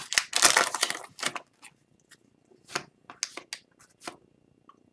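A foil trading-card pack wrapper crinkles as the stack of cards is slid out of it. After about a second and a half it turns to short, dry, scattered flicks and slides as the cards are thumbed through one at a time.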